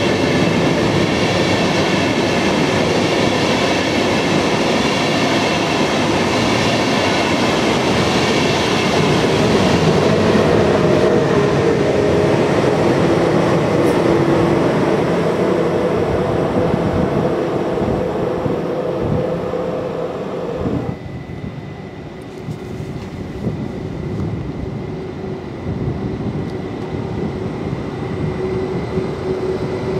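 ÖBB Railjet push-pull train passing and drawing away: wheels rolling on the rails and the whine of its Siemens Taurus electric locomotive's traction equipment. The sound drops sharply about two-thirds of the way in. A Meridian Stadler FLIRT electric multiple unit then pulls in with a quieter steady electric hum.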